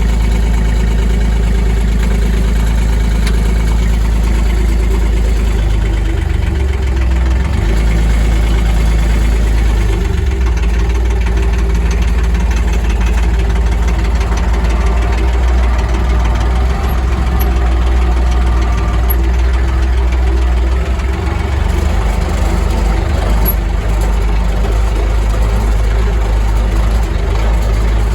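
Diesel tractor engine running steadily with a strong low drone, its note shifting slightly now and then.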